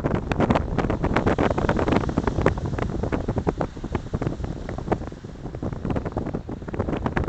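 Wind buffeting the microphone: a rough, continuous rumble broken by many short, irregular pops.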